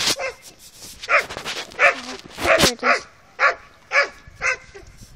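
A dog barking repeatedly in short barks, about two a second, starting about a second in.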